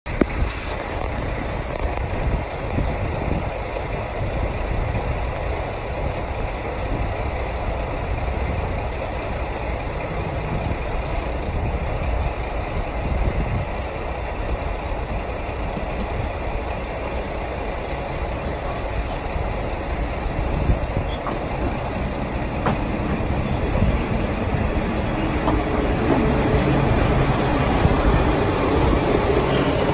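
Steady low rumbling noise, then a Tarumi Railway Hi-Mo 330-700 series diesel railcar approaching and pulling in alongside the platform, getting louder over the last several seconds as it arrives.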